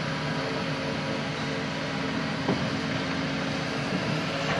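Excavator's diesel engine running steadily as a low mechanical hum, over the even rush of shallow river water running over stones.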